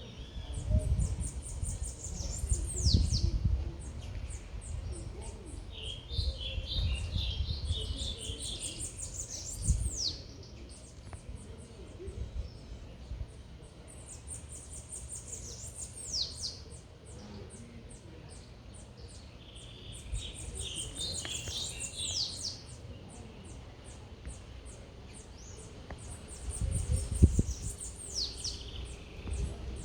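A songbird singing the same phrase over and over, about every six seconds: a quick run of high notes that ends in falling whistled sweeps, with a lower chattering call twice. A low city rumble runs underneath, louder in bursts near the start and near the end.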